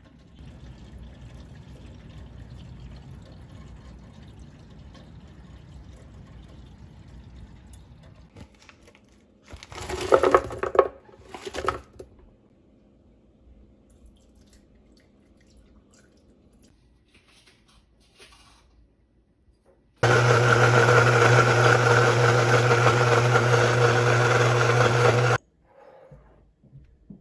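Countertop blender running at a steady speed for about five seconds and then switched off, blending a smoothie. Before it, about ten seconds in, a brief burst of loud knocks and rattles, and a soft steady rushing noise in the first several seconds.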